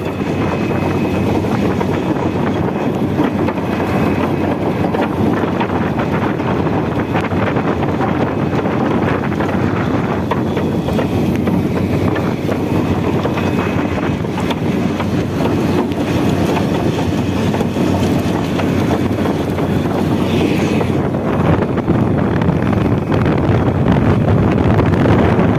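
Steady loud roar of a truck-mounted borewell drilling rig and its air-compressor truck running, as compressed air blows struck water out of the bore, with wind buffeting the microphone.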